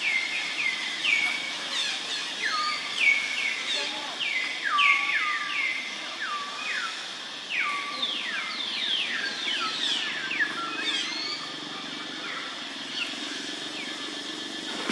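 Birds calling: many quick chirps, each dropping sharply in pitch and then holding briefly. They come thick for about the first ten seconds and thin out after that, over a steady outdoor background hiss.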